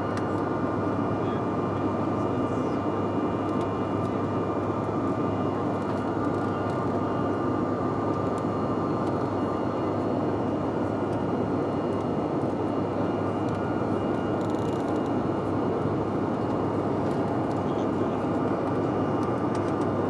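Steady cabin noise inside a jet airliner climbing after takeoff: an even roar of engines and rushing air, with a few thin steady whining tones above it.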